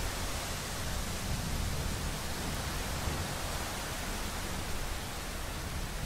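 Steady hiss of rain in a thunderstorm, with a low rumble underneath.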